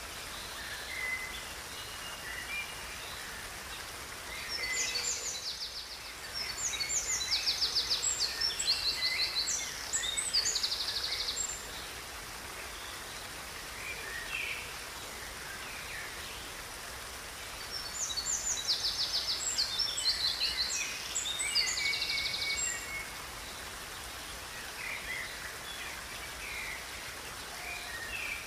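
Birds singing over the steady rush of a river. Two long bouts of fast, high trilled song stand out, with scattered shorter chirps between them.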